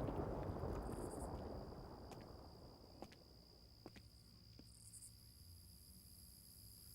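The rumble of an explosion dies away over the first few seconds, with a few faint clicks. Then crickets chirp over a quiet night ambience.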